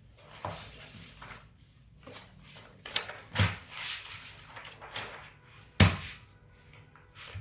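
Handling noises from a child picking through colouring supplies: scattered light knocks and short scraping rustles, with one sharper knock near the end.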